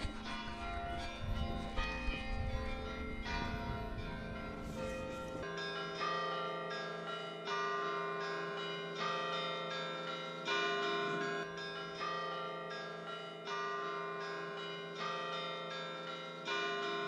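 Church bells ringing, several bells sounding together with a long sustained ring. A low rumble underlies the first five or so seconds and then stops abruptly; after that, fresh strikes come about every second and a half.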